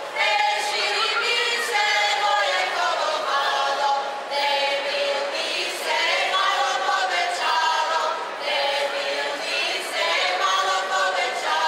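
Group of voices singing a cappella, a Croatian folk song from Lika in short phrases with brief breaks between them.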